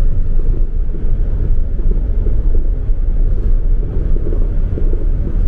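A car driving slowly, with a steady low rumble of engine and road noise.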